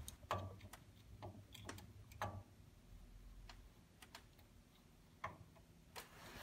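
Faint, irregular small clicks and light metal taps from digital calipers being handled and set against a steel rail and base plate while checking the rail's flatness.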